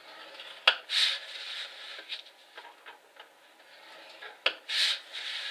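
Scoring stylus drawn through cardstock along a groove of a scoring board, twice. Each stroke is a sharp click followed by a short scraping swish, about a second in and again near the end.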